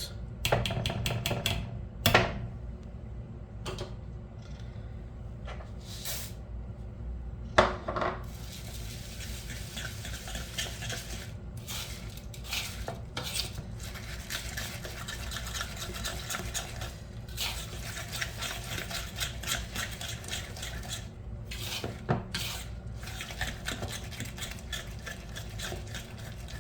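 A utensil stirring a thick oat, egg and mashed-banana batter in a bowl, scraping and clinking quickly against the bowl, with a few sharper knocks in the first eight seconds.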